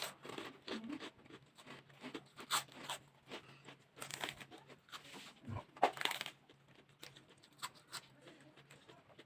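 Close-up eating sounds: a person chewing a mouthful, with irregular short crunches and wet smacks, a louder crunch about six seconds in.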